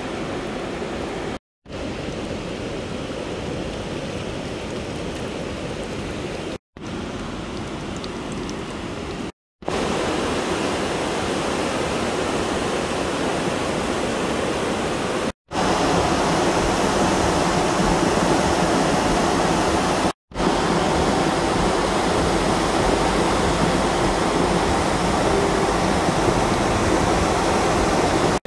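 Muddy flash-flood water rushing over a rocky wadi bed, a steady rush of water broken by several brief silent cuts, louder in the second half.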